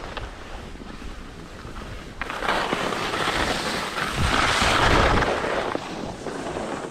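Skis sliding and scraping over groomed snow, with wind rushing on the microphone; the scraping swells twice, loudest about five seconds in.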